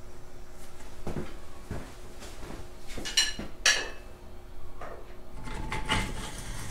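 Metal clinks and rattles of hoist chains and a Farmall MD cylinder head being lowered from an engine hoist onto the block: a few dull knocks early, two sharp ringing clinks about half a second apart midway, and a longer rattle near the end.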